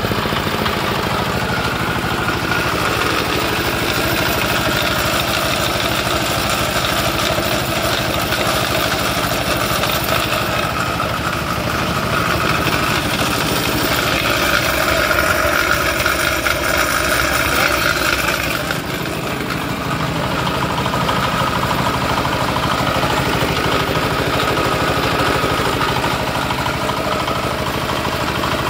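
Single-cylinder horizontal diesel engine running steadily, driving a flat-die pellet mill through a V-belt. About two-thirds of the way through the higher sounds drop away and the running sounds duller.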